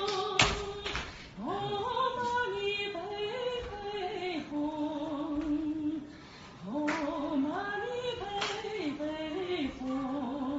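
Music: a woman singing a slow melody with long held, wavering notes, and a few sharp knocks, two at the very start and two more later.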